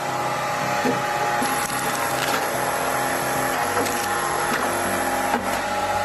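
A firewood-splitting machine running steadily while logs crack and splinter apart, with scattered sharp snaps over its steady hum.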